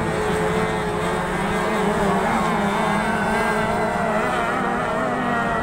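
Motorboat engine running steadily, its pitch wavering slightly.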